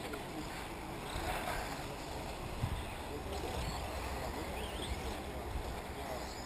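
Electric 1/8-scale RC off-road buggies running on a dirt track, their motors giving faint rising and falling whines over a steady low rumble.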